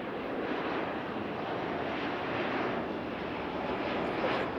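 Steady rushing roar of jet airliner engines, with no distinct tones or impacts.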